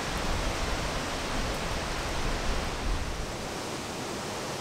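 Steady outdoor noise with no clear source, with low rumbles in the first three seconds.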